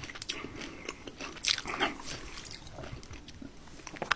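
A person chewing food close to the microphone, with a few crunchy bites about one and a half seconds in.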